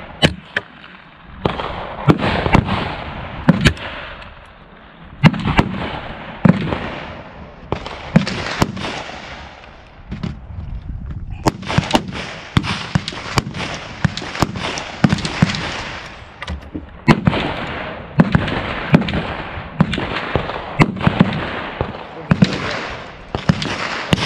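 Gunfire on a busy outdoor shooting range: dozens of rifle and pistol shots from several shooters, overlapping at times several a second, some short and sharp, most trailing off in a long echo.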